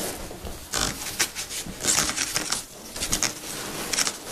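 Foam packing peanuts rustling in irregular bursts as a hand digs through them inside a cardboard box, with the cardboard flaps scraping.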